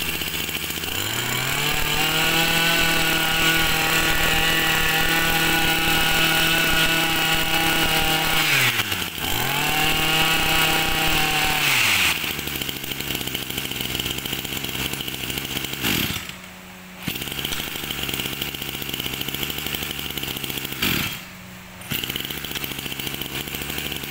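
Tanaka 26cc two-stroke brush cutter engine revved to a high steady whine and held for several seconds, dropped back, then revved again. It then settles to a lower idle, and the sound cuts out briefly twice near the end.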